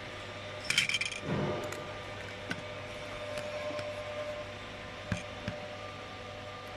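Thin aluminium sheets clatter as one is laid on top of another about a second in, followed by a few light clicks and taps as the plates and welding head are handled. Under it all runs the steady hum of the handheld fiber laser welding machine, which is switched on but not yet welding.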